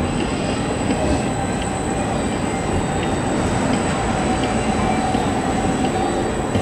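An Edinburgh tram, a CAF Urbos 3 low-floor electric tram, running past close by: a steady sound of steel wheels rolling on the rails, with a faint steady whine in the middle of the pass.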